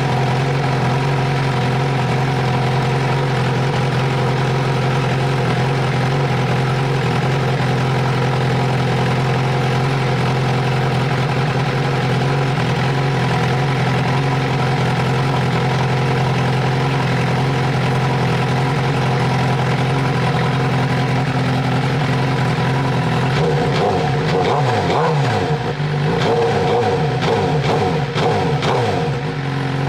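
2014 Suzuki GSX-R1000's inline-four engine idling steadily with fresh oil and a new filter, then revved with a series of throttle blips that rise and fall in pitch over the last several seconds.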